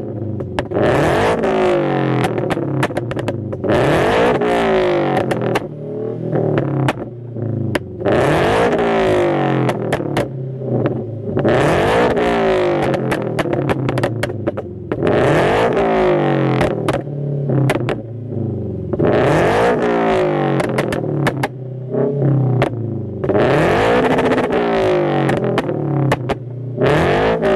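Scion FR-S's 2.0-litre flat-four engine revved over and over, about every four seconds, each rev rising and then falling. Sharp pops and cracks come from the exhaust throughout. This is the backfire of a pop tune (stage 2 plus −7) flashed onto the engine.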